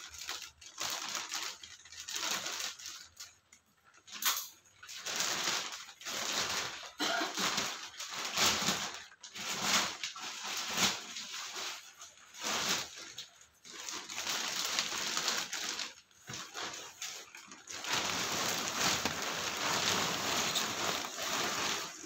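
Plastic wrapping of a vacuum-packed mattress crinkling and rustling in irregular bursts as it is torn open and pulled off, turning into steadier rustling near the end as the mattress expands.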